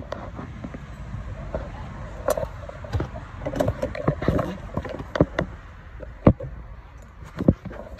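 Irregular clicks and knocks of handling noise while working in a car's engine bay, over a low rumble; the sharpest knocks come about six and seven and a half seconds in.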